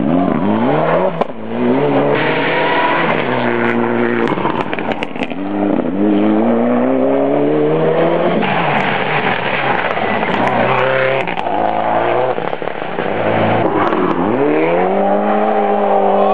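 Turbocharged Mitsubishi Lancer Evolution rally car engines at full throttle. The engine note climbs in pitch and drops back again and again as the car shifts up and pulls away, with scattered sharp cracks along the way. Near the end a second car arrives on hard throttle.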